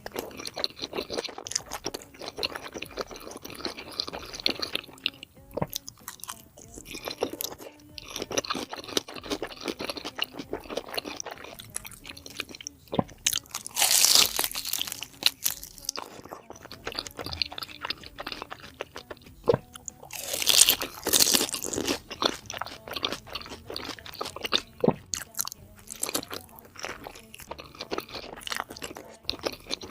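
Close-miked chewing and crunching of spicy pork head, wet and irregular throughout. There are two louder, hissing bursts, about 14 seconds in and about 21 seconds in.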